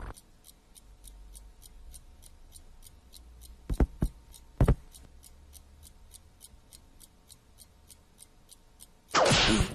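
Clock ticking steadily in a quiet room, about three ticks a second. Two dull thumps come around the middle, and a loud noisy burst starts near the end.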